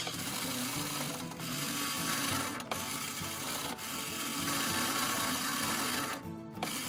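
Small motors of a toy claw machine whirring steadily as the claw gantry moves, with a brief stop about six seconds in.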